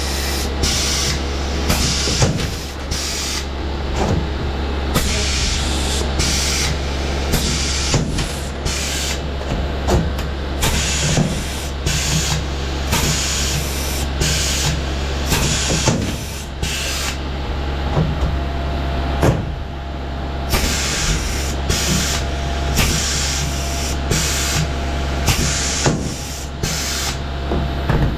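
Pneumatic Huck gun setting Huck lockbolts one after another: repeated bursts of air hiss, each with a sharp snap as the pintail breaks off. A steady low hum runs underneath.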